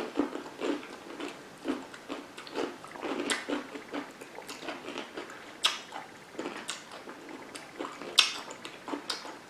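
Biting and chewing sour pickles topped with whipped cream: irregular crisp crunches with wet chewing between them, the loudest bites a little after halfway and near the end.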